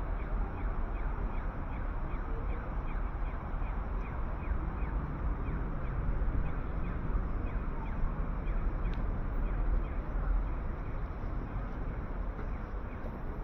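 City street traffic noise, a steady dense rumble, with a rapid, evenly spaced ticking through the first half and a single click about nine seconds in.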